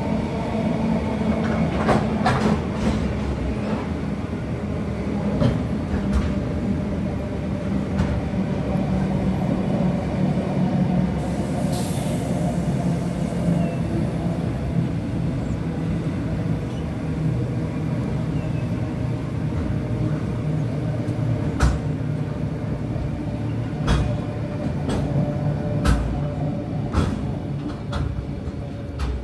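Container wagons of a freight train rolling past on the track: a steady rumble with scattered sharp clacks from the wheels, and a brief high hiss about twelve seconds in. The sound falls away near the end as the last wagon goes by.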